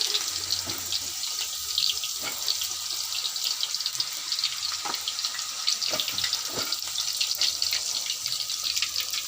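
Cassava pieces frying in hot oil: a steady high sizzle with many small, irregular crackles.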